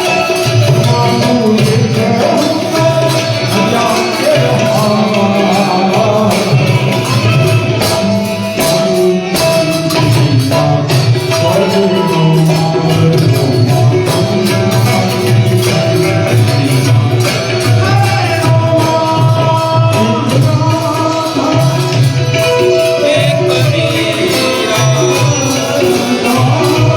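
Music: a devotional song to Shreeji, with singing over tabla and jingling hand percussion.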